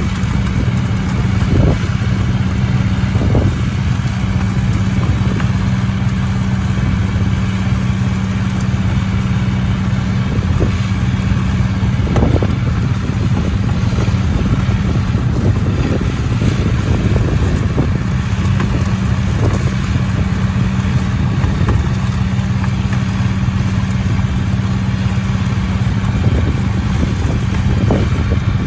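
John Deere tractor's diesel engine running steadily while pulling a muck spreader across a field, with occasional knocks and clatter from the spreader as its beaters throw out muck.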